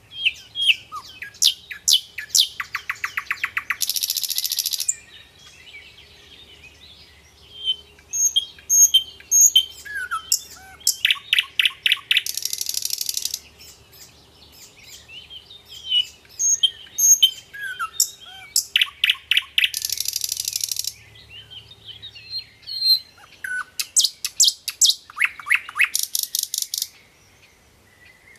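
Birdsong: quick high chirps, fast trills and a buzzy rattle, the same run of calls repeating about every eight seconds, as in a looped recording.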